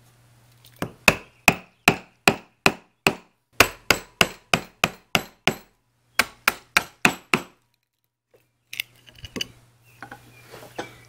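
A wood chisel struck again and again, chopping a hexagonal recess into a wooden bench board for a large hex nut: sharp, evenly paced blows, about two to three a second, in three runs with short pauses between them. Lighter scrapes and clicks follow near the end as the recess is cleared and the nut is set in.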